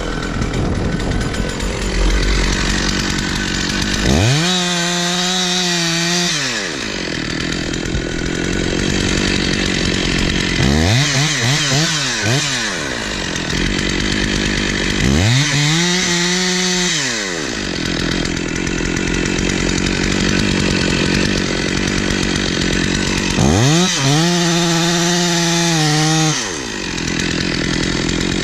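Chainsaw running in a cut, its engine climbing to full speed and dropping back about four times, with loaded, rougher running in between.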